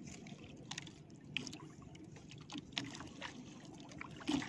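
Water lapping faintly against the hull of a small outrigger boat, with a few light clicks scattered through.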